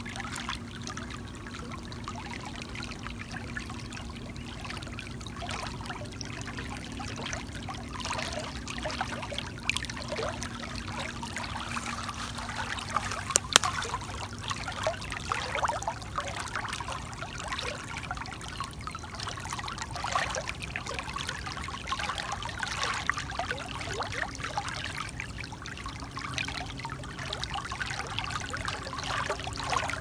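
Water trickling and splashing, with many small drips and gurgles, and one sharp click about halfway through.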